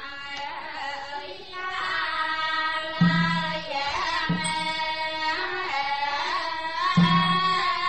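Opening music: a wavering sung melody with accompaniment, and a low drum struck three times.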